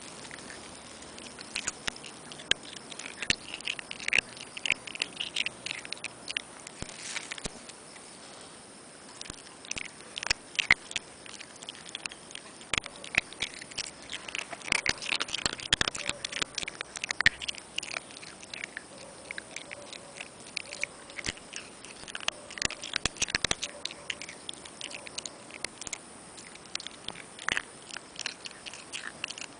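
Chihuahua chewing a small rock: irregular sharp clicks and cracks of teeth on stone, in bursts with short pauses.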